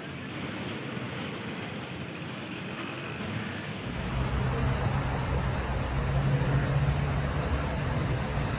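Road vehicle and street noise: a steady hiss, which about four seconds in turns louder with a low rumble and a steady low hum.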